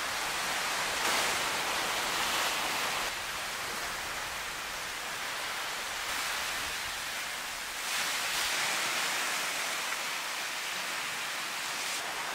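Steady rushing of surf on a beach, swelling twice as waves break and wash in.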